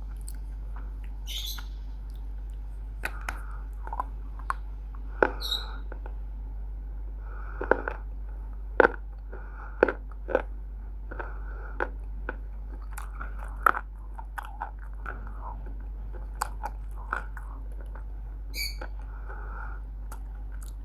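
Roasted Multani mitti (fuller's earth clay) being bitten and chewed: irregular sharp crunches, with a steady low hum beneath.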